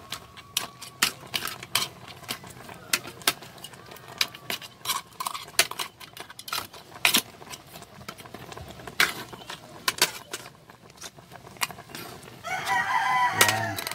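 Irregular sharp crackles and pops from the wood cooking fire under the boiling pot. Near the end a rooster crows once, the loudest sound.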